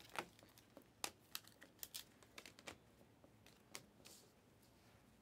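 A stack of glossy Panini Mosaic trading cards being thumbed through by hand: irregular light snaps and slides as each card is pushed off the stack, bunched in the first few seconds and thinning out near the end.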